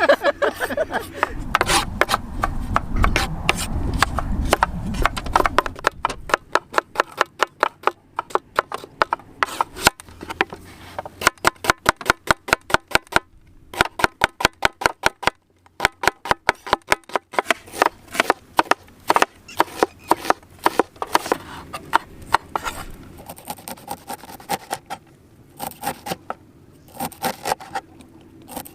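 Kitchen knife chopping on a wooden board: runs of quick, sharp strikes broken by short pauses.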